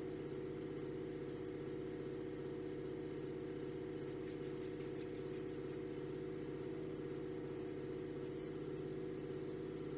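A steady low droning hum at an even level, unchanging throughout.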